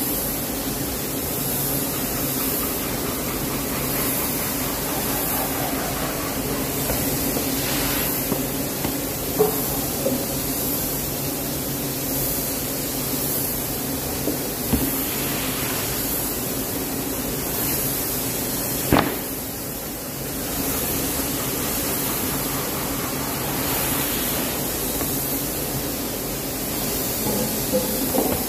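Steady droning hum and hiss, with a few short sharp knocks of plywood sheets being handled, the loudest about two-thirds of the way through.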